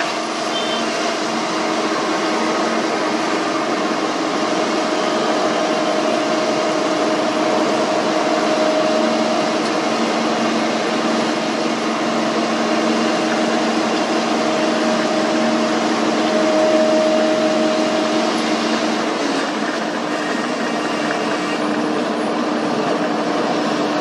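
Heavy diesel engines of an Ashok Leyland tipper truck and a Vögele asphalt paver running steadily while the truck's hydraulic hoist raises its bed to tip the load. The engine note shifts a few seconds before the end.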